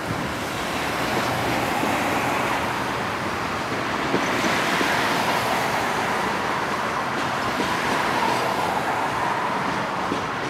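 A bus driving past close by, its road noise mixed with a slow freight train rolling past on the tracks. The combined noise is steady, swelling a little over the first couple of seconds.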